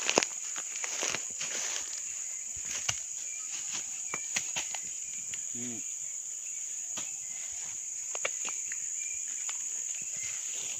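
A steady high-pitched insect drone, with scattered clicks and rustling of plants and footsteps close to the microphone; a loud click just at the start and a short voice sound about five and a half seconds in.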